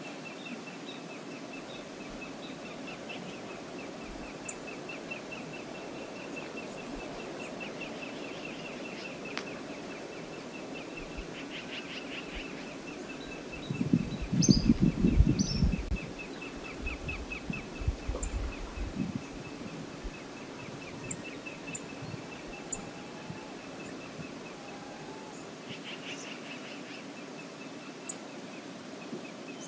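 Steady rush of river water, with faint high chirps over it. About 14 seconds in comes a loud burst of low thumping rumble lasting about two seconds, followed by a few weaker thumps.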